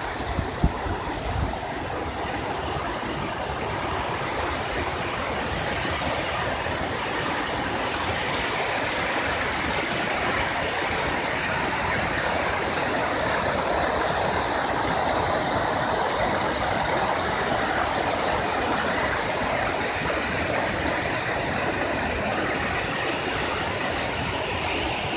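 Fast-flowing river water released from a dam rushing as whitewater below a bridge: a steady, unbroken rush, with a couple of low knocks about a second in.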